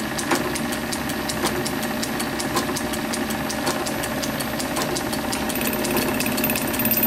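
Small metal lathe running with its four-jaw chuck spinning: a steady mechanical hum with a regular ticking about six times a second, as a very light cut is taken on a model steam engine crank. A high thin whine joins near the end.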